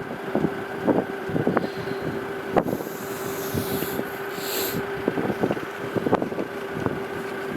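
Wind buffeting the microphone, with irregular thumps and knocks over a steady mechanical hum.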